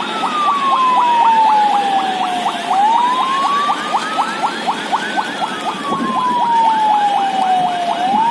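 A siren wailing slowly up and down, falling for a few seconds, then rising, then falling again, with a fast chirping pulse of about five a second running over it.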